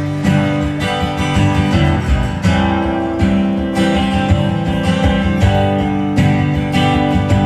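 Strummed acoustic guitar playing chords, with evenly repeated strums.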